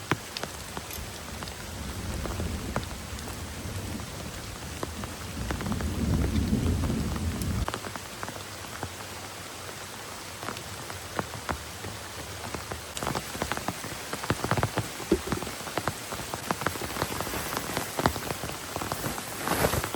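Heavy rain falling steadily, with sharp pattering drop strikes that grow denser in the second half. In the first half a low rumble builds and then stops abruptly.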